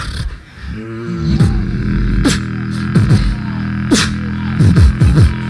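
Two beatboxers performing a duo routine through microphones. One holds a hummed bass tone while the other lays falling-pitch kick drums and sharp snare hits over it, roughly one hit a second.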